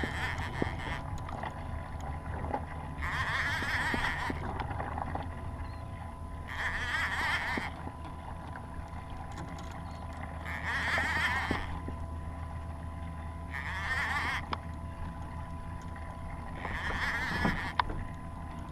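Fishing reel worked during the fight with a hooked fish, giving buzzing bursts of about a second every three to four seconds, over a steady rumble of wind and water.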